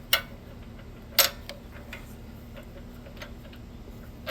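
Two sharp metallic clicks about a second apart, the second louder, then a few faint ticks, as a spark plug and its socket tool knock against the engine while the plug is being started into its thread by hand. A steady low hum runs underneath.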